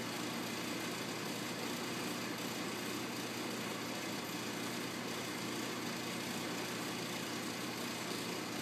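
A steady low mechanical hum that holds the same level throughout.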